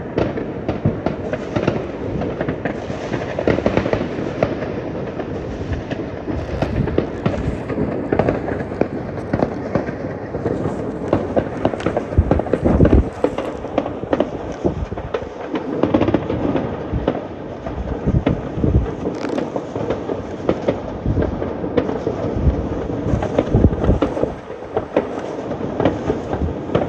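Fireworks display: a continuous, rapid stream of bangs and crackles, with a few heavier low booms about halfway through.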